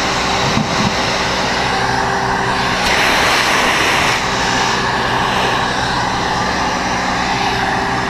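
Steady drone of running machinery, a motor hum with a rushing noise over it that swells for about a second, three seconds in.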